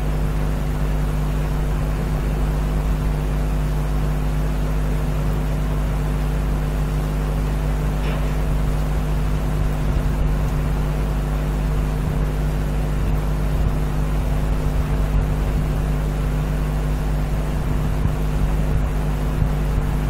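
Steady low hum with a constant hiss underneath, unchanging throughout.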